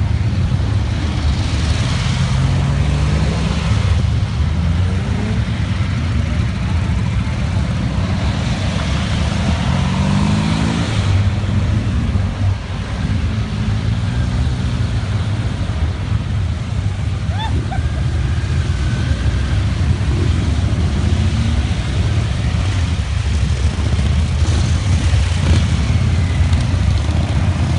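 Motorcycles and trikes riding slowly past one after another, their engines rumbling. Several times an engine rises in pitch as a machine accelerates away.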